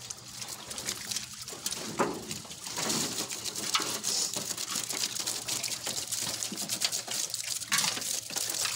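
Water splashing and trickling as wet nets and a catch of shrimp and fish are handled in shallow water, with irregular small splashes and drips throughout and a few louder splashes.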